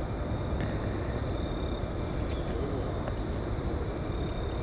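Steady, distant rumble of a departing Bombardier CRJ-200 regional jet's twin turbofan engines climbing away after takeoff, with a faint high insect trill.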